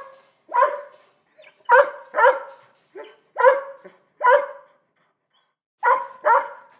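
A small dog barking repeatedly: about eight short, sharp barks in pairs and quick runs, with a pause of about a second before the last two.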